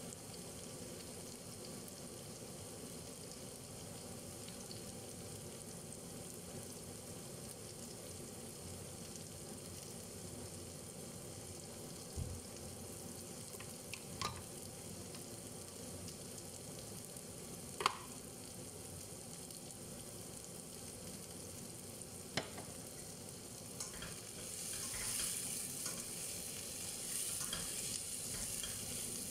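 Food frying in a covered stainless-steel pan on a gas hob, a steady low sizzle broken by a few sharp clicks. Over the last few seconds the sizzle grows louder and brighter, with scraping as the lid is lifted and the pan is stirred with a spatula.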